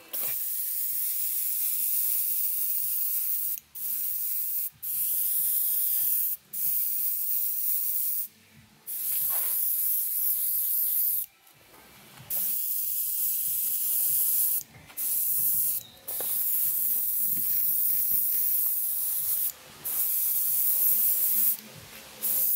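Airbrush spraying thinned enamel paint onto a cast-iron engine base: a loud airy hiss in runs of one to three seconds, broken by about ten short stops.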